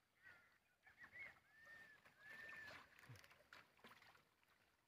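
Near silence, with a few faint whistled calls that each rise and fall, about four of them in the first three seconds.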